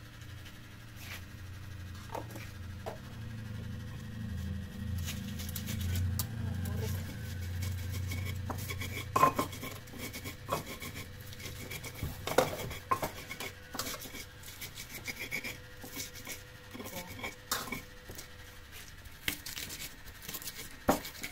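Clatter of plates and cutlery: many sharp clinks and scrapes, densest in the second half. In the first half a low engine hum swells and then fades out.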